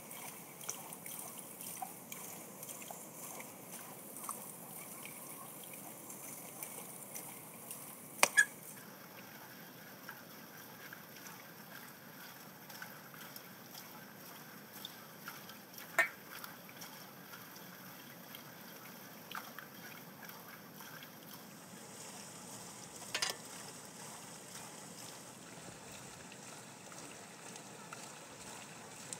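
Steady faint trickle of running water, with a few sharp metallic clinks of a fork against a steel serving platter: a quick double clink, then single clinks later on.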